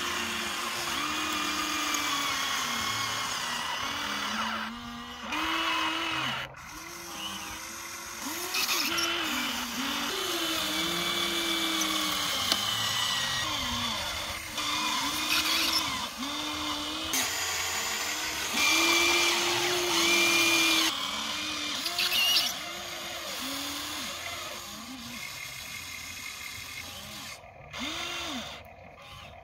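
Electric motors of a Huina radio-controlled toy excavator whining in short runs as the boom, arm and bucket move. The whine stops and starts every second or so, its pitch rising and falling as the motors speed up and slow down while it digs and loads dirt.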